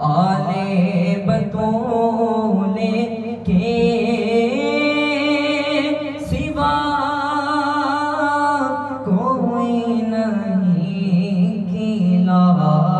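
A man's solo voice singing a manqabat, an unaccompanied Urdu devotional poem, into a hand-held microphone, in long held notes that glide and waver in pitch, with short breaths between phrases.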